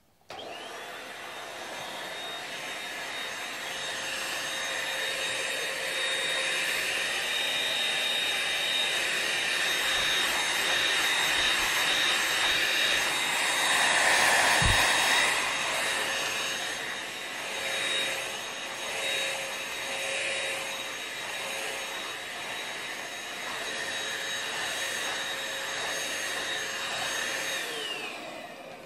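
Household vacuum cleaner switched on and running: a steady rush of air with a high motor whine, louder around the middle as it moves about, with a dull bump about halfway. Near the end it is switched off and the motor's whine falls away as it winds down.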